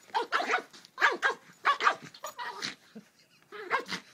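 Yorkshire terrier barking in play: quick clusters of short, sharp barks about once a second, with brief gaps between.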